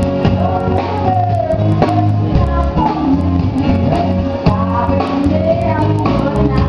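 Music: a voice singing a melody over a band with a steady beat.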